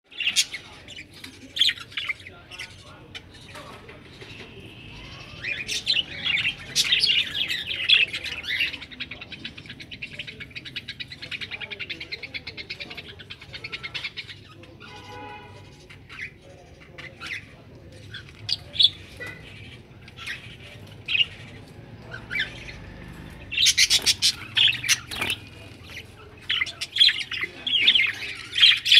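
Budgerigars chirping and chattering in short, high calls, with a fast even warble through the middle and a louder flurry of chirps near the end.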